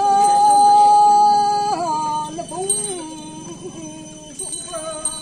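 Women singing a traditional cultural song as they dance: one loud note held steady for nearly two seconds, then dropping in pitch into shorter, wavering notes that grow quieter.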